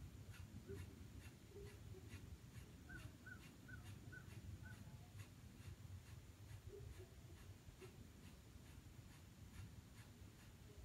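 Kapalabhati breathing: quick, forceful exhales pumped out through the nose by the belly, about three a second, faint.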